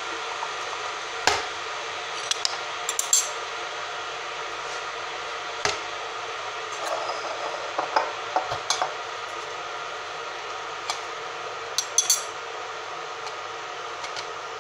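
Scattered clinks and knocks of jars and lids being handled, in short clusters, over a steady background hiss.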